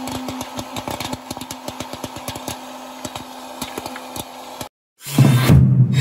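Dash hot air popcorn maker running: its fan motor hums steadily while popcorn pops and rattles out of the chute in many quick irregular clicks. The sound cuts off about four and a half seconds in, and a loud whoosh sound effect starts about half a second later.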